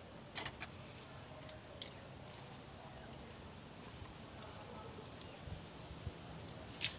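Light, scattered metallic clicks and jingles as small metal parts are handled, with a sharper click cluster near the end.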